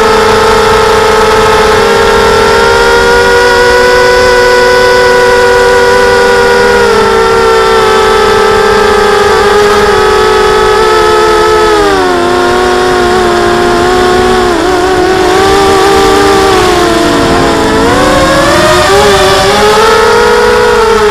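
Diatone mini quadcopter's brushless motors and propellers whining in flight, several close pitches from the separate motors. The pitch holds steady at first, then rises and falls repeatedly in the second half as the throttle changes.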